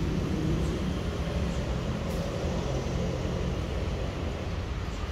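Low, steady rumble of a train, easing off slightly over a few seconds.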